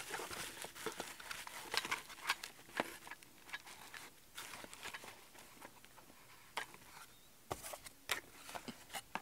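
Plastic parts packaging crinkling and a small cardboard box being opened by hand: irregular rustles and sharp crackles, busiest in the first few seconds, with another flurry near the end.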